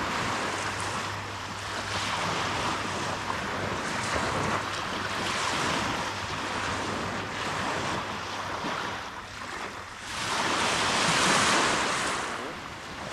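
Small waves breaking and washing up on a sand-and-pebble shore, with wind on the microphone; one wash swells loudest about ten seconds in.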